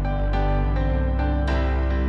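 Background music: sustained chords with notes struck over them at intervals.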